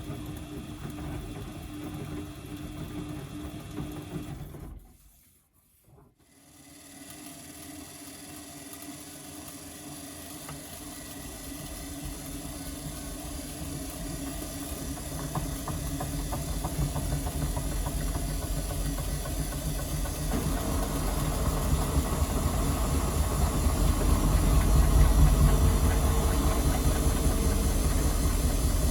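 Washing machine's brushed motor running with a crackling hiss; it stops for about a second, then starts again and builds up steadily in speed and loudness. The crackle is what others take for worn motor brushes or the motor itself going bad.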